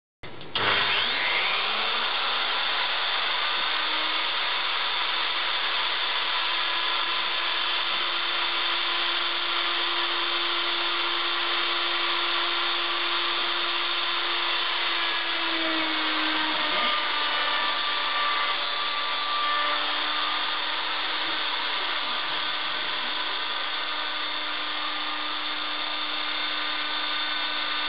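A 1200 W handheld router, serving as the spindle of a homemade CNC router, starts and spins up with a rising whine over the first second, then runs at a steady high pitch as its bit routes into a white sheet.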